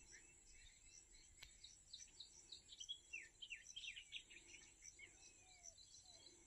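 Faint chorus of insects and birds: a steady high-pitched insect buzz with a regular pulsing chirp, and birds giving short, quick falling chirps, busiest in the middle.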